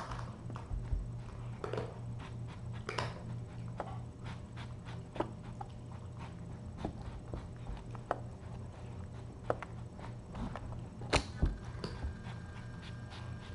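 A kitten bumping and rubbing against a knocked-over camera and its microphone: irregular small clicks, taps and scrapes, with two louder knocks near the end. Under it runs a steady low electrical hum.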